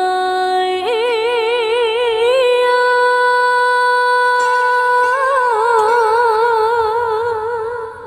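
A woman singing into a microphone in Nghệ Tĩnh ví dặm folk style, holding long drawn-out notes without words. The note rises about a second in with a wide vibrato, is held steady, then wavers again in wide vibrato before fading near the end.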